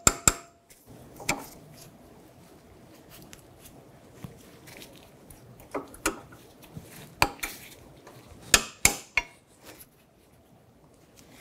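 Pliers working a new steel cotter pin in the outer tie rod end's castle nut: scattered sharp metal clicks and clinks, with three close together late on.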